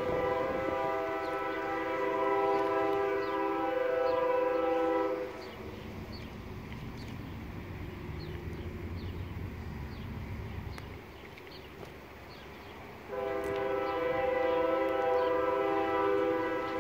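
Diesel freight locomotive's multi-chime air horn sounding a long, steady chord that cuts off about five seconds in. A low rumble follows, and the horn starts again a few seconds before the end.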